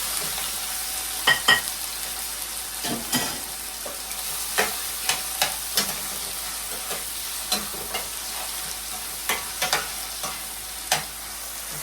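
Seasoning sautéing in hot oil in a frying pan: a steady sizzle, with scattered sharp clicks and knocks throughout, the loudest about a second and a half in.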